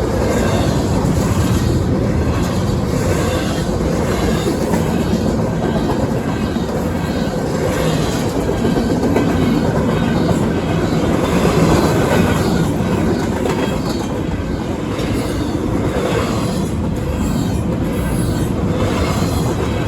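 Railroad cars of a freight train rolling past, the wheels clacking rhythmically over rail joints under a steady rumble, with some wheel squeal.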